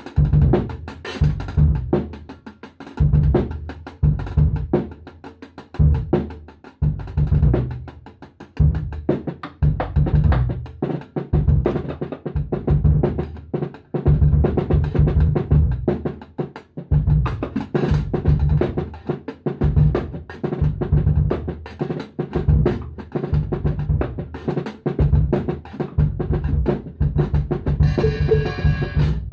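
Drum kit played in a funk groove, bass drum and snare hits with rimshots in a steady busy pattern. The kit is a cheap one that the player calls shitty.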